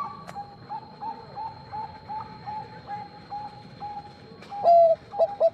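Male zebra dove (perkutut) cooing: a steady run of short, soft coo notes about three a second, then a louder, lower coo and a quick burst of clipped notes near the end.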